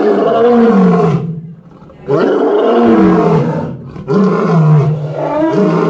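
Male Barbary lion roaring: three long, loud roars with short pauses between them, the first breaking off about a second in and the next two following close behind.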